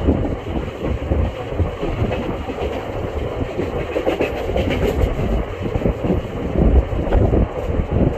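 Indian Railways express passenger train running at speed, heard from beside the coach: the steady, loud running noise of its wheels on the rails.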